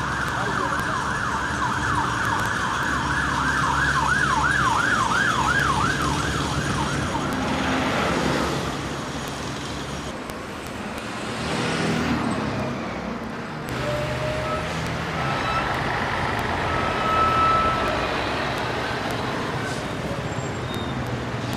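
Emergency vehicle siren wailing rapidly up and down, about two sweeps a second, fading out after about seven seconds, followed by city street traffic noise.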